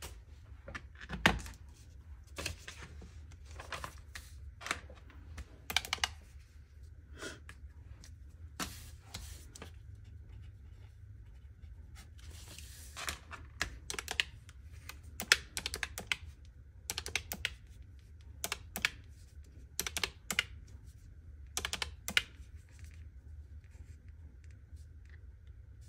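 Keys of a retro desktop calculator with round typewriter-style keys being pressed: a long run of irregular, sharp clicks as a column of figures is added up.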